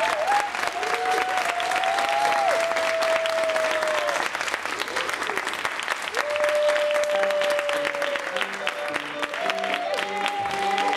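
Audience applauding steadily, with music coming in about seven seconds in.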